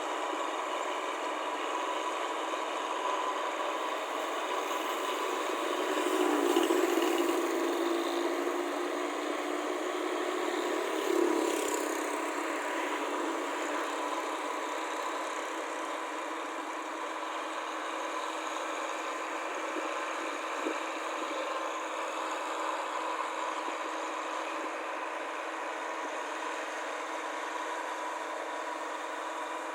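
Rice combine harvester's engine running steadily with a constant hum, swelling louder between about six and twelve seconds in.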